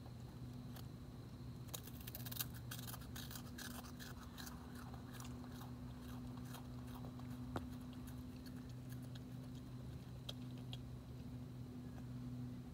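Opossum crunching on food, a fast run of crisp chewing crunches about two seconds in that thins to scattered crunches later. A steady low hum runs underneath.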